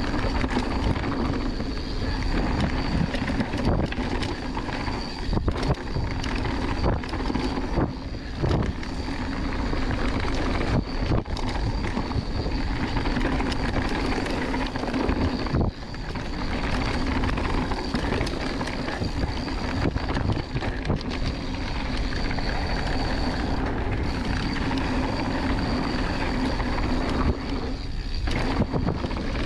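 Mountain bike descending a dirt singletrack at speed: a continuous rush of tyres on dirt and wind buffeting the microphone, with frequent clatters and knocks as the bike goes over bumps. A steady high tone runs through it, dropping out briefly a few times.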